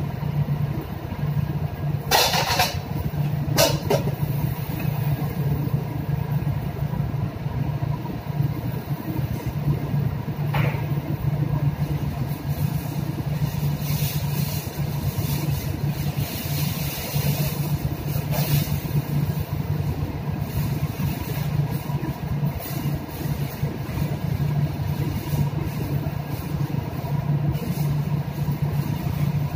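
Steady low drone of a ship's machinery at sea, with a few short sharp clatters, the loudest about two seconds in and again just before four seconds.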